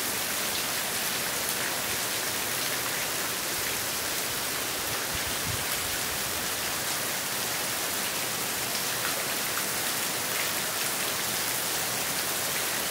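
Heavy rain pouring steadily: a dense, even hiss with scattered drop taps, and a brief low rumble about five seconds in.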